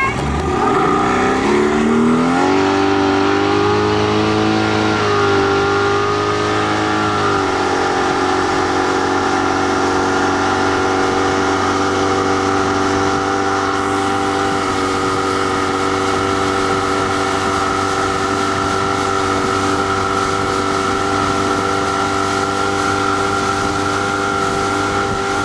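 Motorboat engine speeding up over the first couple of seconds, then running at a steady pitch while towing an inflatable tube at speed.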